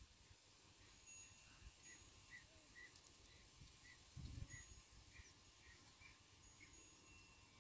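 Near silence with faint, short high chirps repeating about twice a second, and a soft low bump about four seconds in.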